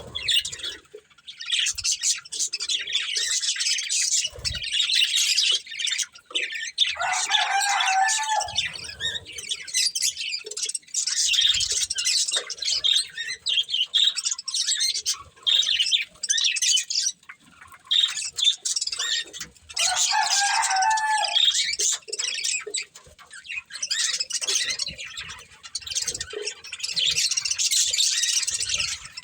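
Budgerigars chattering and chirping almost without pause in quick, high warbles, with two lower, harsher calls about seven and twenty seconds in.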